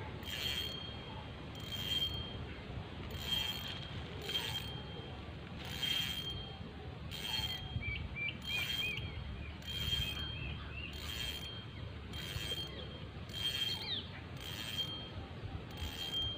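Spinning fishing reel wound in slowly, a short mechanical whirr with each turn of the handle, about once every second and a bit. Wind rumbles on the microphone, and a bird chirps briefly about halfway through.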